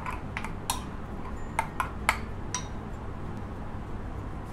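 A spoon clinking against a small glass bowl while ginger-garlic paste is mixed with salt: several light, irregular clinks over the first two and a half seconds, then they stop.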